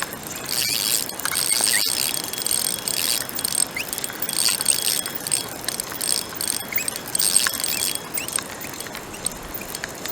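Fishing reel clicking and whirring in repeated bursts as line is wound in or pulled out against the drag while a fish is on the line.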